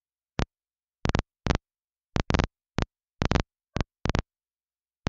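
Air traffic control radio feed between transmissions: about a dozen short static crackles, irregularly spaced and some in quick pairs, with dead silence between. These are the receiver's squelch briefly opening, as on brief mic key-ups.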